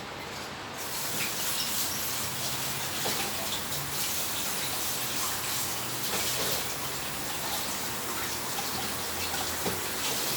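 A steady rushing, hissing noise, like running water, with a few faint clicks.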